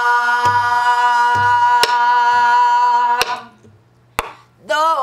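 A woman singing pansori, holding one long steady note over a buk barrel drum: two low thumps on the drumhead and sharp clicks of the stick on the drum's wooden shell. The note breaks off about three seconds in, and after a short pause she starts singing again with a wavering note near the end.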